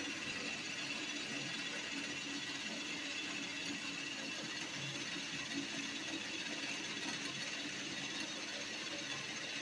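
Bench drill motor running steadily, spinning a pencil held in its chuck as the pencil is fed down into a bar of soap.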